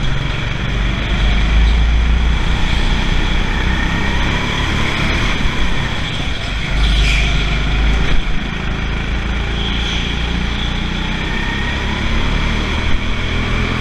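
Indoor go-kart running at speed, its motor heard steadily from an onboard camera. Two spells of heavy low rumble, a couple of seconds apart, from buffeting at the microphone.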